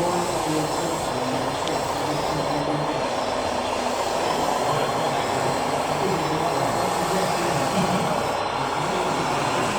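A steady, even din, with indistinct voices mixed in underneath.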